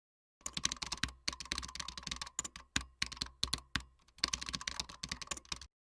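Hands handling a diecast model's packaging: a rapid, irregular run of small clicks and rustles that stops abruptly near the end.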